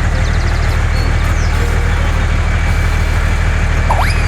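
Heavy vehicle engine running steadily at an even pitch, a constant low rumble.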